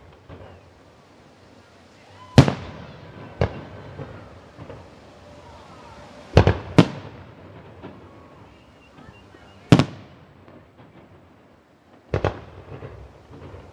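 Fireworks bursting: about seven sharp bangs at irregular intervals, each trailing off in an echo, with two close together about six and a half seconds in and another pair near the end.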